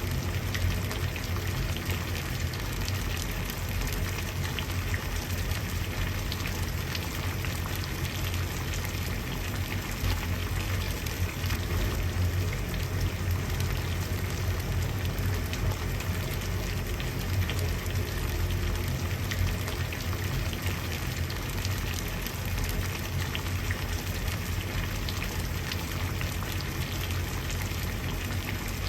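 Water boiling: a steady bubbling with a low rumble underneath and a dense patter of small pops.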